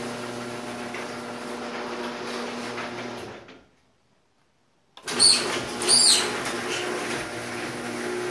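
Garage door opener motor running with a steady hum, dropping out about three and a half seconds in. After a second and a half of silence it runs again with two short, high chirping squeals a little under a second apart: the worsening chipmunk-like squeal of the opener.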